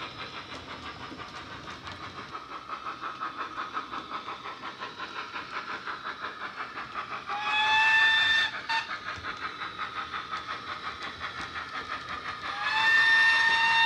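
Sound-fitted Dapol OO-gauge Mogul model locomotive, its DCC sound decoder playing steam locomotive sounds through its speakers: steady exhaust chuffs at about four a second. The whistle blows twice, once about halfway through for a little over a second and again near the end in a longer blast. Each blast slides up briefly in pitch at its start, and the whistle is the loudest sound.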